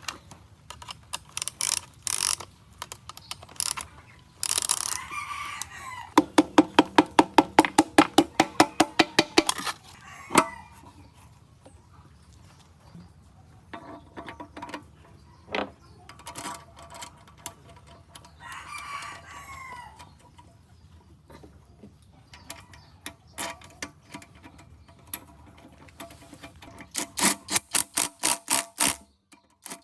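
A rooster crows twice, once a few seconds in and again about two-thirds through. Between and near the end, quick regular trains of mechanical clicks, about six a second, are the loudest sound.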